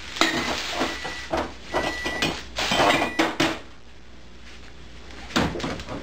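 Glass bottles and containers clinking and knocking against each other and the fridge shelves as they are put away, with a thin ringing note from the glass. The clatter is dense for the first three and a half seconds, then one more knock comes near the end.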